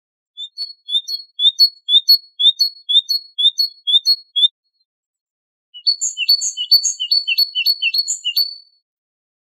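Great tit singing its repeated two-note song in two bouts: a steady run of about nine phrases, a pause of over a second, then a quicker run of about seven.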